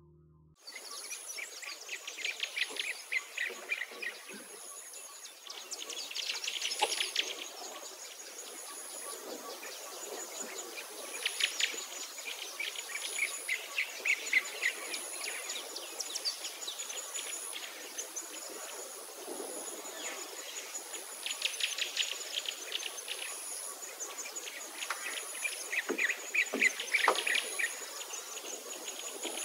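Outdoor nature ambience: birds chirping and trilling over a high insect call that pulses at an even rate. It starts abruptly about half a second in.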